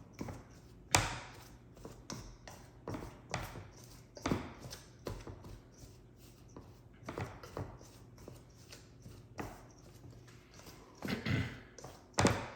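Irregular knocks and scrapes in a mixing bowl, roughly one a second, as cold butter is worked into flour for pie dough, bringing it to a crumbly, cornmeal-like texture. The loudest knocks come about a second in and near the end.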